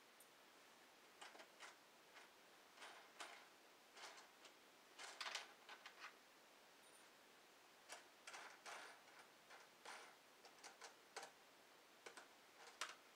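Faint, irregular clicking and light rustling of small plastic ramp parts and screws being handled.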